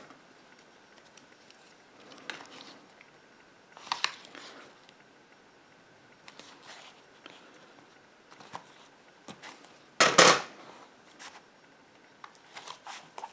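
Adhesive tape pulled from a roll and pressed onto card stock: quiet paper rustling with a few short sharp rips and scrapes, the loudest about ten seconds in.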